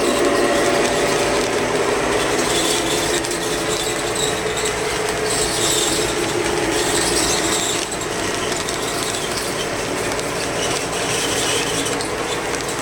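O gauge model train running on its track: a steady mechanical whir of motor and gears with the wheels rolling on the rails.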